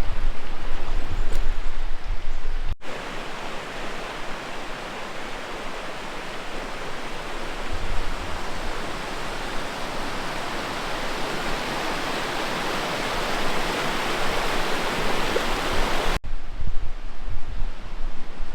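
Steady rushing of river water, an even hiss with no rhythm. It starts and stops abruptly, about three seconds in and again near the end. The stretches before and after it carry a louder low rumble.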